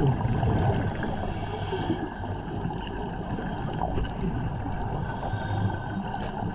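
Steady underwater noise with a low drone, as picked up by a diver's camera below the surface.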